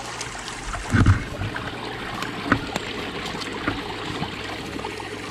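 Small kindling fire crackling, with scattered sharp pops, over the steady rush of a nearby stream. A soft thump about a second in.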